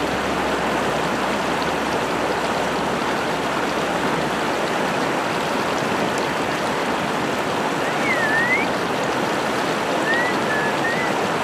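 The Chalhuanca river rushing over and between large boulders: a steady, even rush of fast-flowing water.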